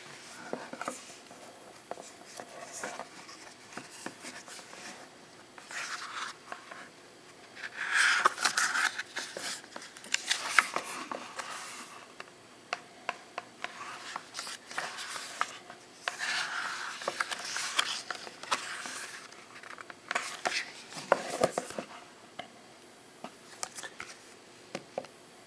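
Glossy paper pages of a photo booklet being turned and handled: intermittent rustles and brushing slides of heavy paper, with small ticks and taps in between.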